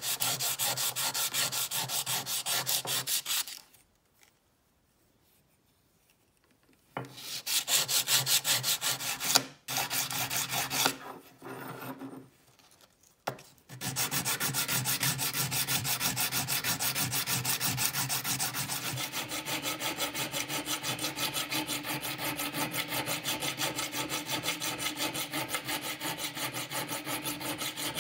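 Abrasive paper on a wooden block rubbed in quick back-and-forth strokes over a rusty old steel open-end wrench, hand-sanding off the rust. The strokes stop for a few seconds about four seconds in, come back, falter again briefly, then run on evenly through the second half.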